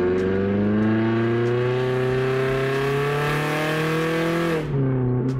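Straight-piped Toyota Corolla four-cylinder, muffler removed, heard from inside the cabin under acceleration: an extremely loud exhaust note climbing steadily in pitch for about four and a half seconds, then dropping suddenly to a lower steady note near the end.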